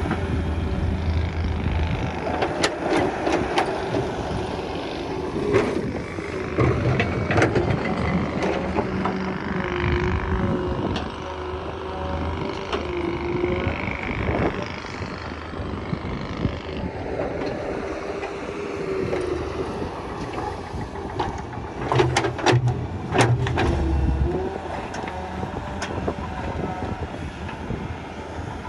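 Daewoo Solar 130 crawler excavator digging: its diesel engine runs steadily under load while the hydraulic pitch dips and rises with the work. Sharp knocks are scattered through it, with a tight cluster of them about three-quarters of the way through.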